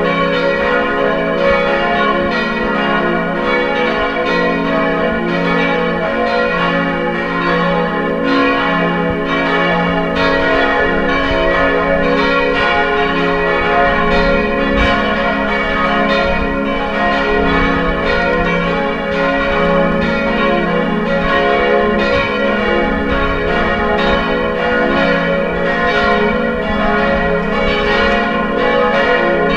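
Several church bells ringing together, many strokes overlapping in a continuous peal.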